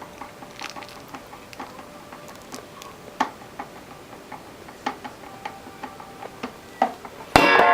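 Irregular light clicks and taps of kitchen utensils against a bowl and measuring cup while powdered sugar is scooped. Near the end, a loud acoustic guitar strum comes in and rings on.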